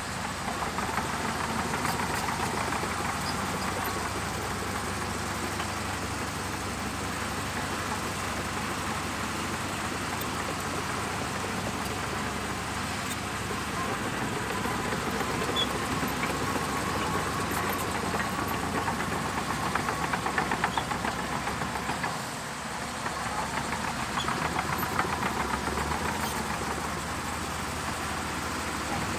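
Shantui DH17C2 crawler bulldozer's diesel engine running steadily, with a brief drop in level about two-thirds of the way through.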